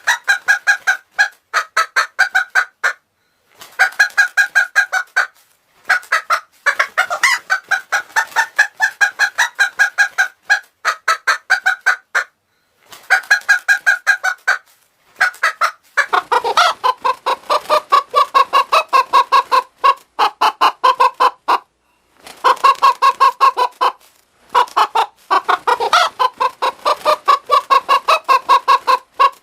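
Hen clucking in rapid runs of repeated clucks with short pauses between, altered by a voice changer. The pitch is raised at first and drops to a lower register about halfway through as the effect changes.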